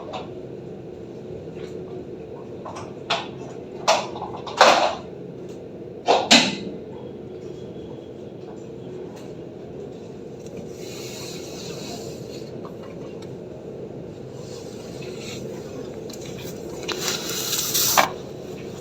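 Steady rain with a muffled, low hiss. Over it come a handful of sharp knocks, the loudest sounds, in the first six or so seconds. Later there are two longer swells of hiss, the second ending in a knock.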